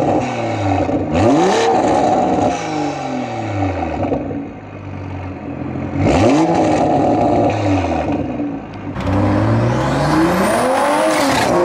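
Toyota A90 Supra exhaust through an HKS Hi-Power cat-back, revved sharply twice from idle, about a second in and again about six seconds in, the note falling back slowly after each rev. Near the end the car pulls away under acceleration, the exhaust note rising in pitch before easing off.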